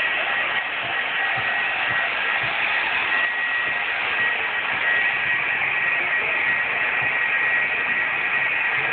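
Handheld electric heat gun blowing steadily with a constant airy hiss and a thin high whine from its fan, heating a freshly sprayed tint layer on a taillight lens.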